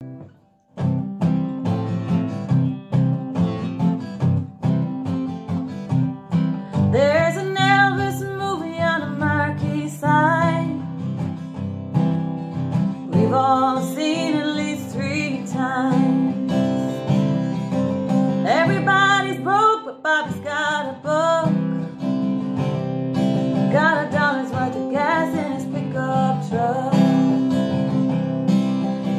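Acoustic guitar strummed steadily. About seven seconds in, a woman starts singing, in phrases separated by short guitar-only gaps.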